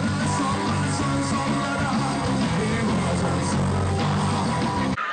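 Live rock band music: electric guitar, bass and drums with a man singing. It cuts off abruptly near the end.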